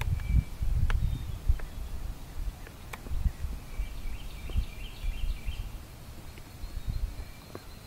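Wind rumbling in gusts on the microphone. A small songbird twitters once, in the middle, and there are a few sharp clicks.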